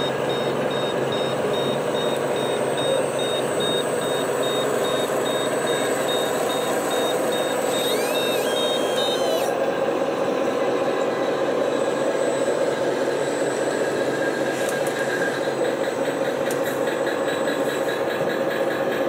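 Simulated diesel engine sounds from radio-controlled model trucks and construction machines running steadily, with a high electronic reversing beeper pulsing evenly for about the first nine seconds.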